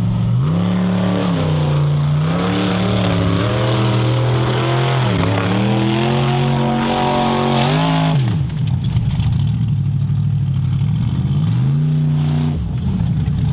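Formula Offroad car's engine revving hard, its pitch climbing and falling repeatedly for about eight seconds. It then drops to a rough, lower note and revs up briefly again near the end.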